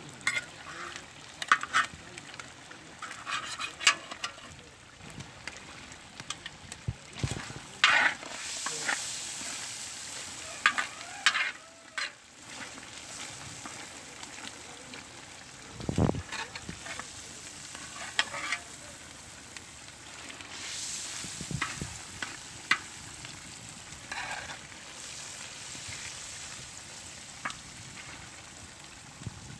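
Beef tripe sizzling as it fries in a wide black metal pan, with a spatula and knife scraping and knocking against the pan at irregular moments as it is stirred.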